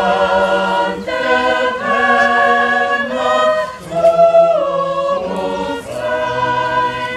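Choir singing a chord progression in several parts, each chord held for about a second before the voices move together to the next.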